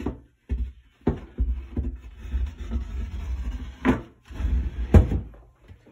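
A painted MDF shelf board being handled and set onto its 1x2 wooden supports: a string of knocks as it bumps the supports and closet walls, with scraping and rubbing in between; the loudest knock comes about five seconds in.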